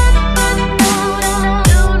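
Background electronic dance music with heavy kick drums, whose low thuds fall in pitch, over a sustained synth chord.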